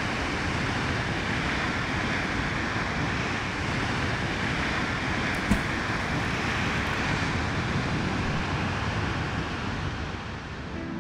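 Steady rushing noise, like an outdoor roar of wind, surf or distant traffic, with one sharp click about halfway through; it dips in level near the end.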